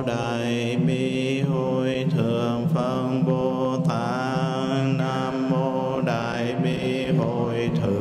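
Buddhist mantra chanted in a sustained, melodic recitation, with a steady rhythmic accompaniment beneath the voice.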